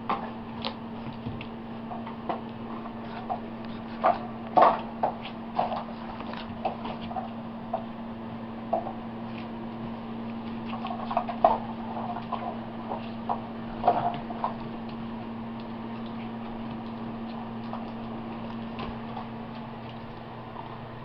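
Scattered light clicks and taps from five-week-old boxer puppies moving about on a floor mat, their paws and claws on the surface, loudest in a few clusters, over a steady low electrical hum.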